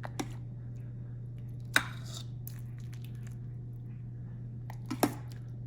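Ladle and dishes clinking a few times as soup is served: one loud clink just under two seconds in and a quick double clink near the end. A steady low hum runs underneath.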